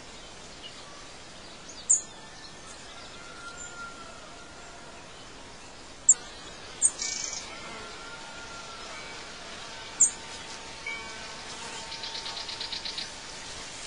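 Birds chirping: a few short, sharp high chirps spaced a few seconds apart and a fast trill near the end, over a steady background hiss.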